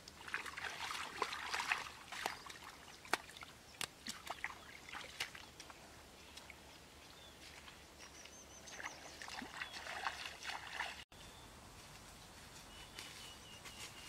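Hands splashing and sloshing in shallow muddy paddy water for about the first two seconds, with scattered sharp clicks. This gives way to quieter outdoor sound with a thin high whistling tone now and then.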